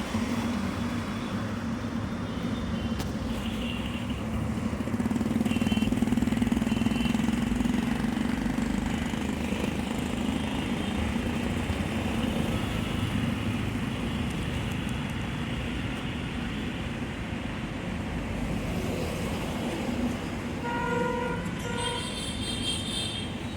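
Steady rumble of road traffic, with a vehicle horn honking briefly near the end.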